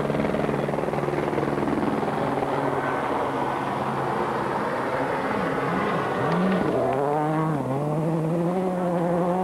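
Rally car at full speed on a gravel stage, its engine note steady at first, then rising and falling sharply with throttle and gear changes from about five seconds in.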